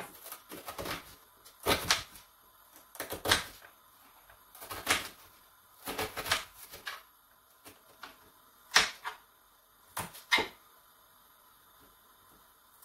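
Kitchen knife cutting a red onion on a wooden chopping board: irregular knocks of the blade against the board, coming a few at a time with pauses between, sparser near the end.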